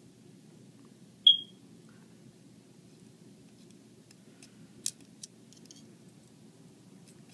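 One short, sharp, high-pitched beep about a second in, then a few small clicks as the parts of a phone being put back together are handled, over a steady low hum.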